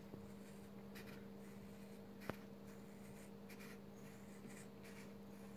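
Scissors cutting through black nylon belt webbing: faint, scattered snips and scraping, with one sharper click a little over two seconds in, over a steady low hum.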